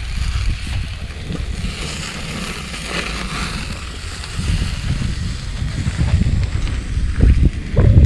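Wind buffeting the microphone outdoors: an uneven low rumble with a faint hiss, gusting harder near the end.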